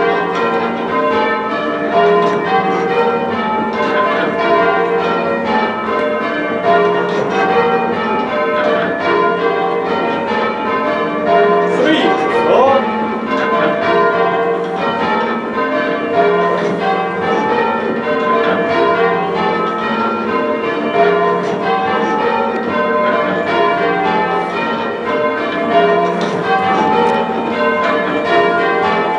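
The six heavy church bells of St Bartholomew's, Meltham, rung full circle by a band of ringers. They strike one after another in an even, unbroken rhythm, and each stroke rings on under the next.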